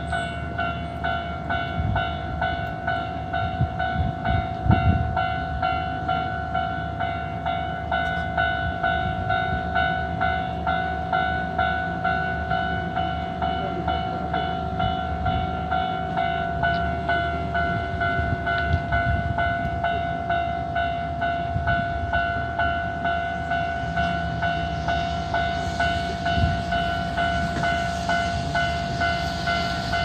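Japanese railway level-crossing alarm on the Hankyu line ringing continuously, a steady electronic ding repeating quickly. It is the warning that a train is due, sounding while service is suspended after the typhoon. A car approaches near the end.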